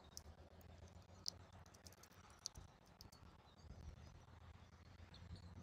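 Near silence: a low steady hum with a scatter of faint, sharp clicks, the clearest about a second and two and a half seconds in.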